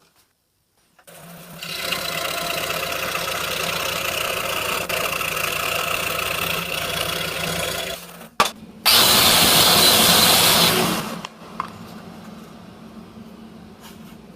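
Scroll saw running as it cuts through a scrap wood board: a steady motor buzz that starts about a second in. Just past the middle a louder, harsher cutting noise takes over for about two seconds, then drops back to a quieter hum.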